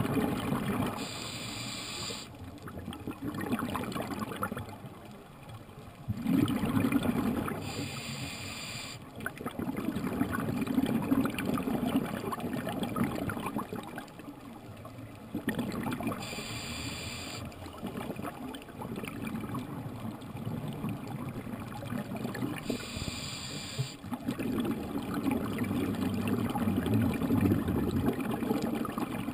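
Scuba diver breathing through a regulator underwater. There are four short hissing inhalations about seven or eight seconds apart, with longer stretches of bubbling exhaled air between them.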